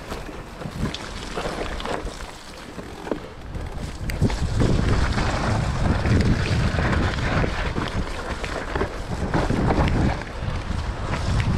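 Mountain bike riding down a muddy trail: wind buffeting the microphone over tyre noise, with frequent short rattles and knocks from the bike. The rumble gets louder about four seconds in.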